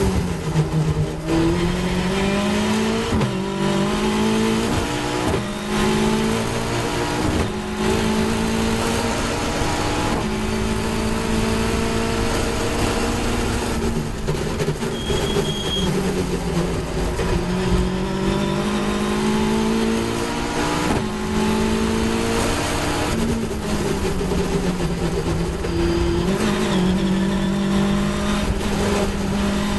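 Caterham 420R's 2.0-litre Ford Duratec four-cylinder engine at full racing effort. It revs up through about three quick upshifts in the first eight seconds, then falls and climbs again as it brakes into corners and accelerates out.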